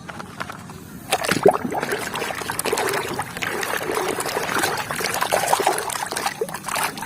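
Water trickling and splashing while a toy is washed by hand, with many small clicks and knocks mixed in, picking up about a second in.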